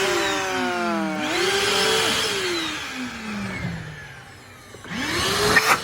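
Lotus 6-gallon 1200 W wet/dry vacuum cleaner switched on for a first power test: its motor spins up with a rising whine, winds down after it is switched off, and spins up again about five seconds in.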